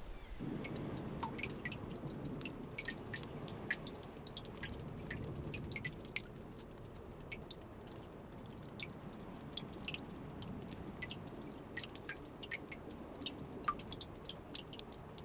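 Water dripping: many small, irregular drops plinking one after another over a low, steady wash.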